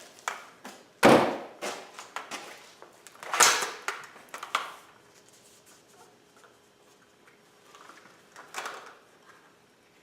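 Hard plastic knocks and clatter from a homemade PVC nerf rifle being handled. A sharp clack about a second in is the loudest. A longer sliding knock follows around three and a half seconds, and lighter knocks come later.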